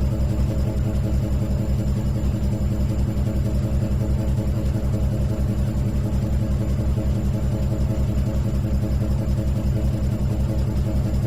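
Electric motor running steadily, a low hum with a fast, even pulsing.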